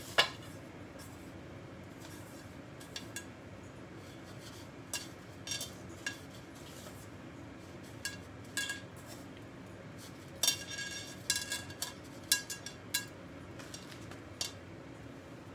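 Scattered light clinks and taps against a ceramic bowl as croquettes are dipped in beaten egg and bread crumbs by hand, with a quick run of clinks about ten to thirteen seconds in, over a steady low hum.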